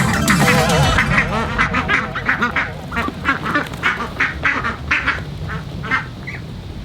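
A flock of ducks quacking, many short calls in quick succession that thin out and fade toward the end.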